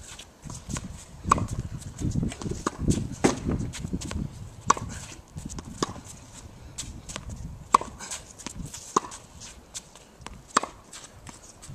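Tennis rally on a hard court: sharp pops of a tennis ball struck by rackets and bouncing on the court, coming every second or so in a steady back-and-forth rhythm.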